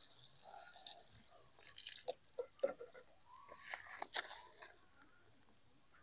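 Faint splashing and crackling of water from a watering can's rose landing on dry soil and dead leaves, in scattered patches with small clicks.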